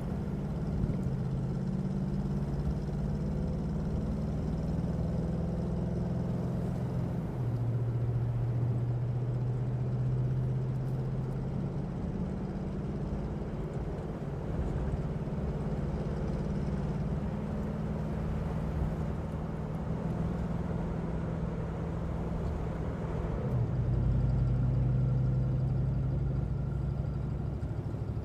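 Car engine and road noise heard from inside the moving car's cabin: a steady low drone that shifts in pitch a few times and grows louder near the end.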